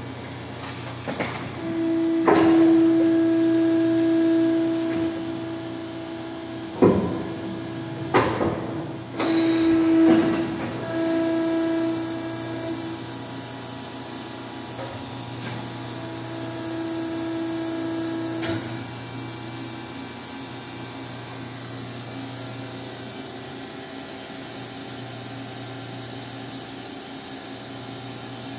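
Sumitomo SH450A injection molding machine with its sliding safety gate shut, running a cycle: a steady hum with a held whine for about ten seconds, broken by three sharp clanks, then a shorter whine near the middle.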